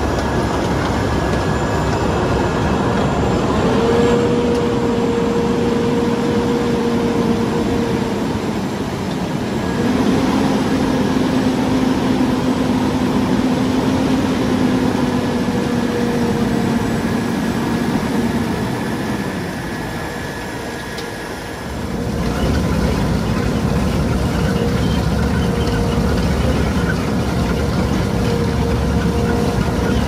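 Self-propelled potato harvester and tractor running while lifting potatoes: steady heavy engine noise with a hum whose pitch shifts a few times. The level dips briefly about twenty seconds in before the sound changes.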